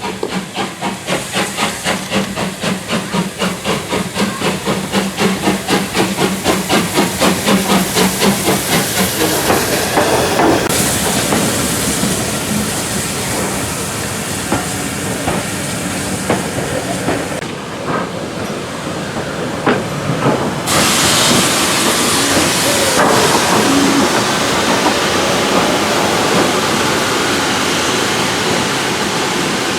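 Steam locomotive working, with rhythmic exhaust beats and hissing steam at about two to three beats a second for the first several seconds. Then a steady loud hiss of escaping steam takes over; it cuts off briefly past the middle and resumes.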